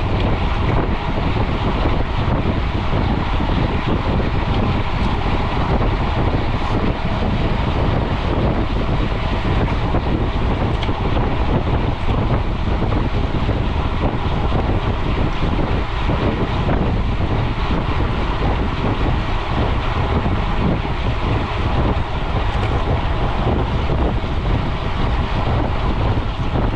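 Steady wind noise buffeting a GoPro's microphone on a mountain bike ridden at speed on a road.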